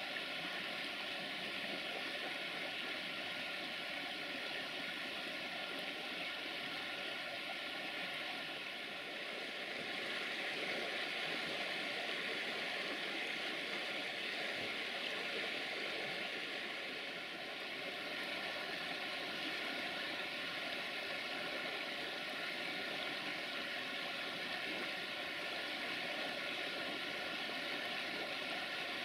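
Steady rushing of a shallow mountain river flowing over gravel riffles, with a faint steady hum beneath it.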